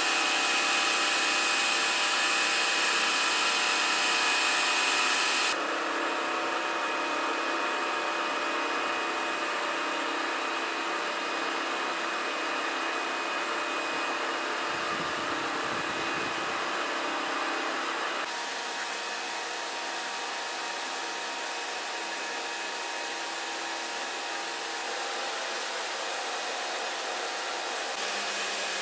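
Pressure washer running: a steady motor whine under the hiss of its spray, stepping abruptly down in level about five seconds in and again about eighteen seconds in.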